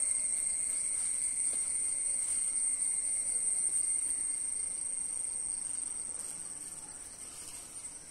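Insects trilling: one steady, high-pitched buzz that runs on without a break and eases off a little near the end.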